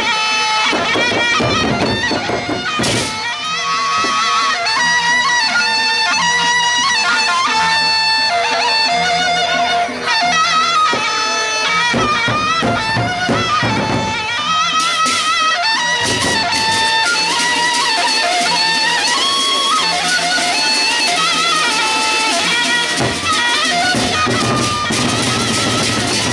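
Sasak gendang beleq ensemble playing: a reedy wind instrument carries a wavering, ornamented melody over large drums and percussion, with heavy drum strokes at several points.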